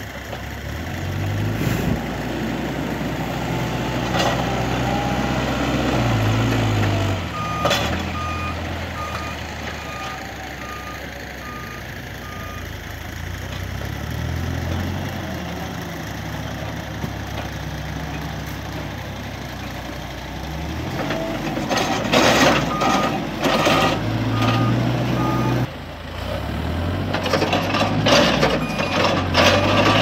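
Cat 432F backhoe loader's diesel engine working, its revs rising and falling under load, while a reversing alarm beeps steadily for several seconds. Near the end comes a loud stretch of rattling and clanking.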